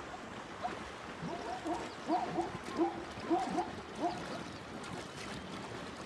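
Ostriches splashing and bathing in shallow pan water make a soft, steady wash. About a second in, a run of about eight short hooting calls begins, roughly two a second, and stops a little past the fourth second.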